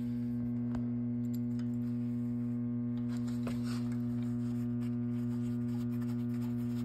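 A steady electrical hum, a low tone with a higher overtone above it, with a couple of faint clicks about a second in and halfway through from metal bike parts being handled at the rear wheel.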